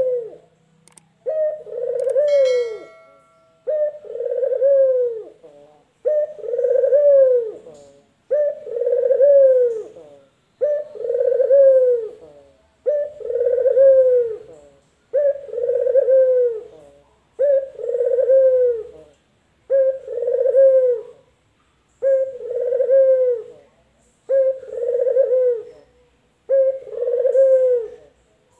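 Male ringneck dove (Indonesian 'puter lokal') cooing over and over: about a dozen alike calls, each a short note followed by a longer arched coo that swells and falls, roughly one every two and a quarter seconds.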